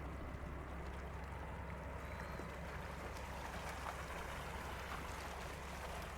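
Ferry under way: a steady low engine rumble with an even rushing hiss of water over it.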